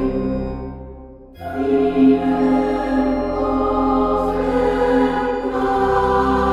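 Background music of slow, sustained choral-style tones. It fades down about a second in, and a new held passage begins.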